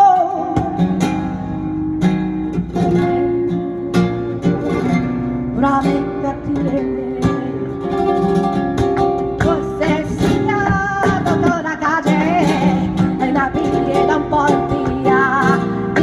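Live flamenco music: an acoustic flamenco guitar strumming and picking in sharp, rhythmic strokes, with a singer's voice in long, wavering sung lines that grow stronger in the second half.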